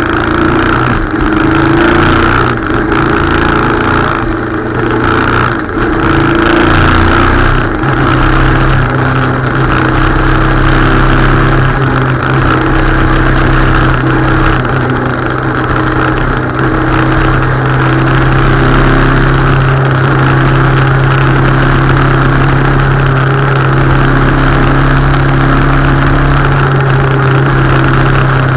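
Motorcycle engine pulling away, its note rising in the first few seconds, then running steadily at cruising speed, over a steady rush of wind and road noise.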